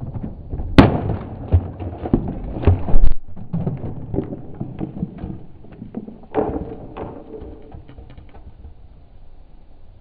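Drip coffee maker crashing onto brick paving: a sharp impact about a second in, then a couple of seconds of knocking and clattering as its plastic parts and glass carafe hit the ground. Another hard knock comes a little after six seconds, then a few light rattles.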